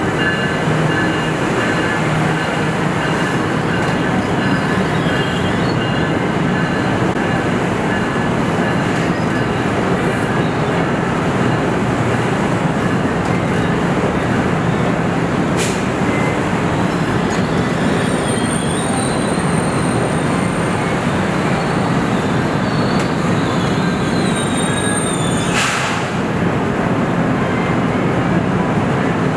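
Amtrak Avelia Liberty (Acela 2) electric trainset rolling slowly past the platform in an underground station: a steady, even rail noise with thin, high wheel-squeal tones coming and going. Two sharp clicks sound, one about halfway and one near the end.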